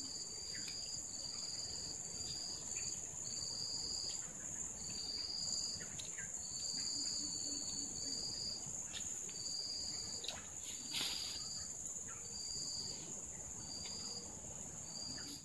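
Insects calling in tropical forest: one steady high-pitched buzz, with another insect's short chirps repeating irregularly about once a second.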